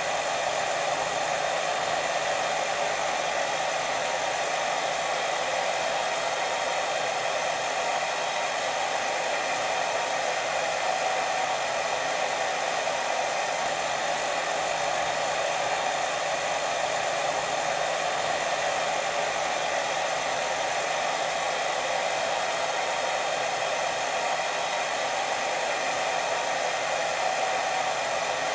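Steady white noise for sleep: an even, unbroken hiss, fullest in the middle range, that does not change.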